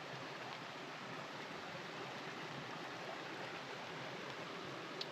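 Steady, even hiss of water outdoors, falling rain and running water blending into one continuous wash.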